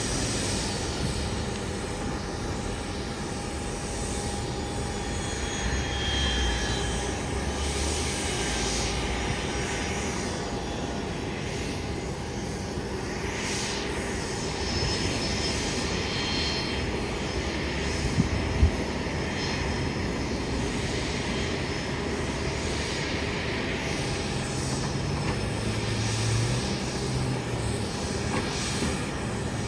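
Jet aircraft engines running: a steady roar with a faint high turbine whine that drifts in pitch, and two brief knocks a little past the middle.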